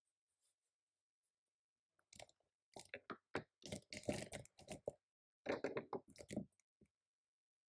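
Typing on a computer keyboard: quick runs of key clicks starting about two seconds in, pausing briefly near the middle, then another run.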